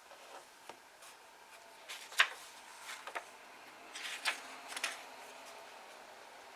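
Pages of an old book being turned by hand: several short, crisp paper rustles and flicks, the sharpest about two seconds in.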